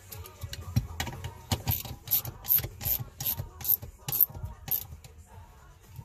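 Ratchet wrench clicking in an even rhythm, about eight clicks at two to three a second, as a shifter-box mounting bolt is tightened down; a few irregular metal knocks come just before.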